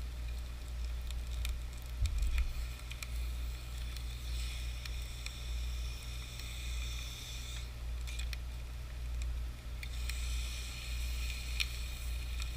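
Circuit boards sizzling and crackling in molten aluminum, with scattered sharp pops, in two spells separated by a short lull, over a steady low rumble.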